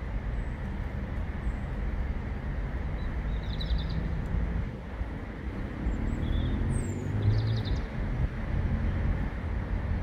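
Outdoor city ambience: a steady low rumble of road traffic, with one vehicle's engine rising in pitch about six to seven seconds in. A few short high chirps sound about four seconds in and again near seven seconds.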